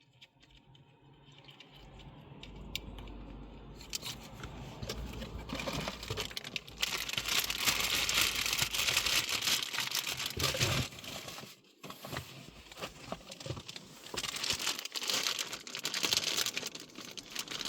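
Packaging crinkling and rustling as the stereo kit's parts are handled and unwrapped. It builds up a few seconds in, is loudest from about seven to eleven seconds in, and pauses briefly near twelve seconds before going on.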